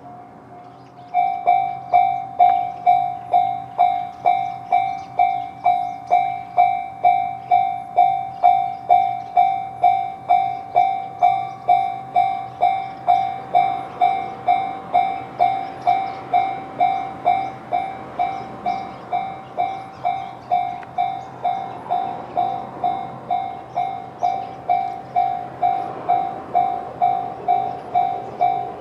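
Japanese railway level-crossing alarm in the JR standard tone: an electronic bell that rings loudly about twice a second, starting about a second in over a fainter alarm already sounding. In the later part a train's rumble grows underneath as it approaches.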